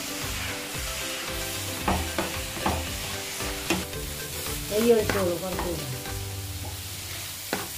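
A spatula stirring and scraping through crumbly okkara (chana dal and jaggery) frying in ghee in a pan, over a steady sizzle. It gives a few sharp scrapes against the pan and a louder stretch of scraping about five seconds in.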